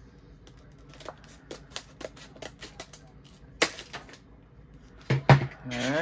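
Scissors cutting through a stiff clear plastic blister pack: a run of small scattered clicks and crackles from the plastic, with one much louder crack about three and a half seconds in.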